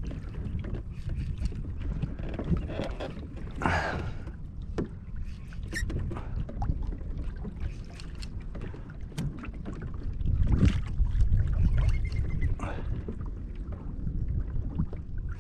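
Water lapping and splashing against a plastic fishing kayak's hull as it moves, with wind rumbling on the microphone and scattered light knocks.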